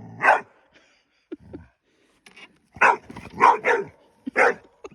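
A dog barking: one bark near the start, then four more in quick succession in the second half.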